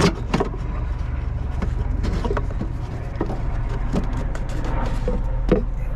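Scattered light clicks and knocks, about eight in six seconds, over a steady low hum.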